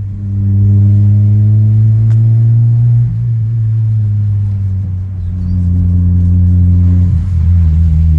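Toyota Corolla E11's 4E-FTE 1.3-litre turbo four-cylinder running through a 3-inch stainless steel exhaust with Simmons Turbonett resonators, heard from inside the cabin while driving. It makes a steady low drone whose pitch climbs gently for about three seconds, then drops and levels off, with another drop near the end.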